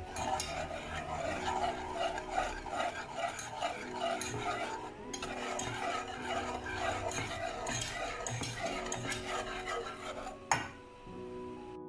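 Metal wire whisk scraping round a nonstick saucepan in quick rhythmic strokes, stirring lemon juice, zest and sugar while the sugar dissolves over the heat. A sharp knock near the end, after which the whisking stops.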